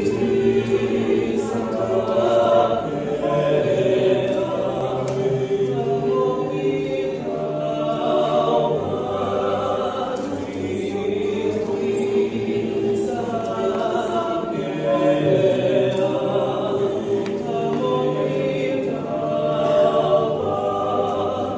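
Male vocal trio singing a cappella in harmony, with long held notes in phrases a few seconds long.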